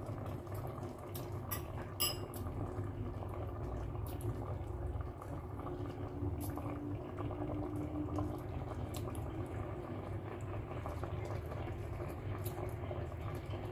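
Coconut-milk sauce with tuna simmering in a metal pot, bubbling steadily as it is cooked down to reduce the broth, with a few short sharp ticks.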